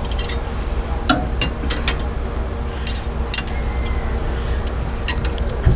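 Combination wrench clinking against a steel bolt as a mechanic works a loose fitting: about eight short, sharp metallic clinks at uneven intervals, the loudest near the end, over a steady low hum.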